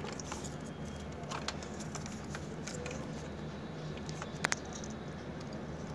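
Light clicks and scratching of fingers handling plastic wire connectors and cables inside an air-conditioner outdoor unit, with a sharper double click about four and a half seconds in, over a steady low hum.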